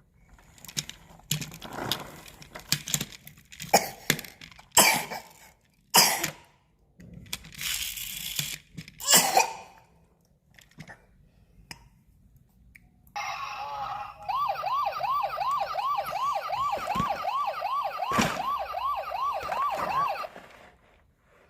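Knocks and rattles of toys being handled, then a toy police car's electronic siren: a brief steady tone, followed by a rising yelp that repeats a little over twice a second for about six seconds before cutting off suddenly.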